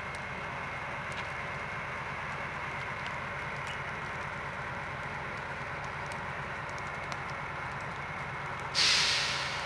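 SU45 diesel locomotive's Fiat V12 diesel engine idling steadily. Near the end comes a sudden loud hiss of released compressed air that fades within about a second.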